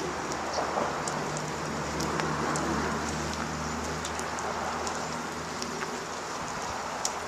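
A large flock of birds calling all at once: a dense, steady wash of many overlapping short chirps and clicks, with a low hum underneath from about a second in until near the end.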